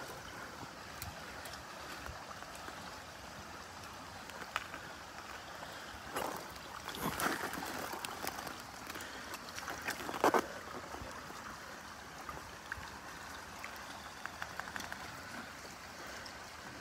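Shallow river water running and gurgling, with a few short splashes about six, seven and ten seconds in where a hand holds a brown trout in the current.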